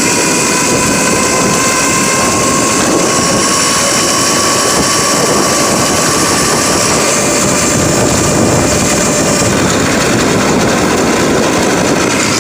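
Electric kids' ATV, converted to 48 volts with a chain-driven motor, running: a steady high motor whine with several tones over the rattle and hiss of the chain drive and tyres, the lowest tone rising slightly over the first few seconds.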